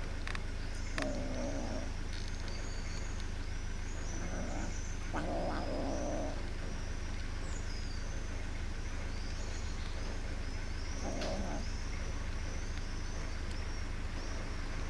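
Kitten growling in several short, rough bouts while it eats, guarding its food from the other kittens.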